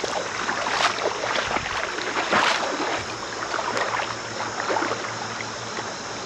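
River water sloshing and splashing in irregular surges, as of someone wading through a river, over the steady rush of the current.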